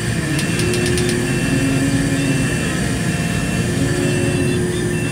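A crane's motor running steadily as it hoists a loaded skip, with a high warning beep repeating about once a second.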